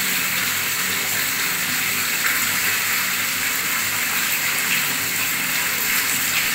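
Water from a tap gushing steadily into a pool of water, splashing and bubbling with an even rushing sound.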